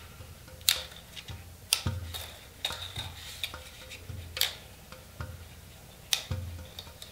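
Parrot Anafi drone's folding plastic arms being swung open by hand: about six sharp clicks and snaps with light handling knocks as the arms swing out and seat.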